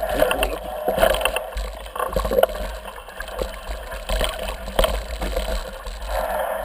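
Footsteps on a dirt and stone trail and the scattered knocks and rattles of a mountain bike being pushed uphill, with rustling and rumble from the camera being carried along.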